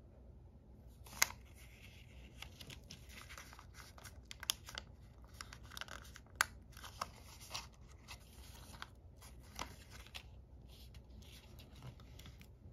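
Folded origami paper rustling and crinkling as hands slide and press paper pieces together, with a few sharp taps and clicks among it.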